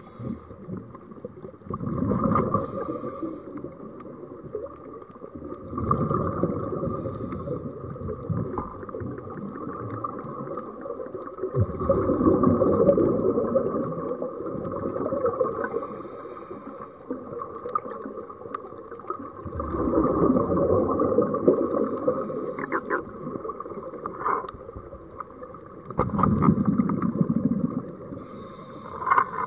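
Scuba regulator breathing underwater: a short hiss on each inhale and a loud bubbling rush of exhaled air on each exhale, repeating over several breaths every five or six seconds.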